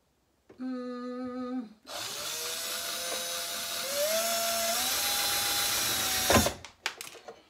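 Cordless drill running in reverse against a cabinet hinge screw, so the screw will not go in. A short first burst, then a steady run of about four seconds whose whine steps up in pitch partway through, ending in a sharp knock and a few clicks.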